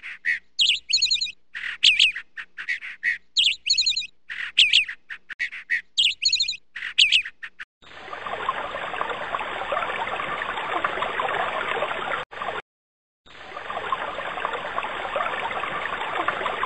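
Songbird calls, short trilled phrases repeated again and again, then a steady rush of falling water from a waterfall that starts abruptly, cuts out for about a second and starts again.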